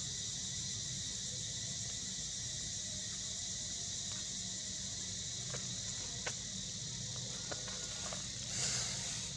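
A steady, high insect chorus, like crickets or cicadas, in the forest canopy. A few faint clicks come in the second half, and there is a brief noisy rush near the end.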